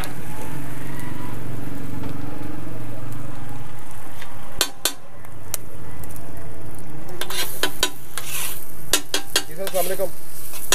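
Egg-and-lentil tikki mixture sizzling on a large flat tawa griddle while a metal spatula scrapes and chops it. In the second half there is a quick run of sharp clanks of the spatula against the griddle.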